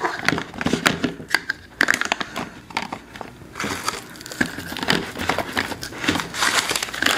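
Small plastic containers and packets clicking and knocking against a clear plastic jar as they are packed into it, with crinkling of plastic wrap and paper.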